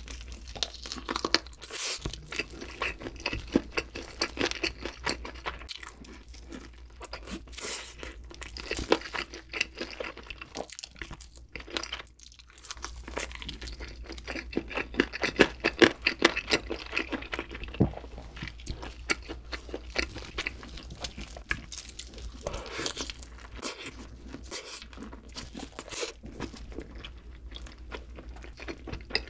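Close-miked crunching and chewing of barbecue-glazed chicken, with a steady stream of irregular crisp crackles and bites and a short pause near the middle.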